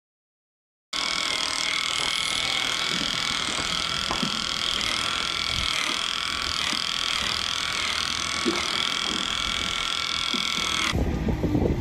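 Electric animal clippers start about a second in and run with a steady high-pitched whine while trimming the hair of a cow's tail switch. Near the end this cuts to wind rumbling on the microphone.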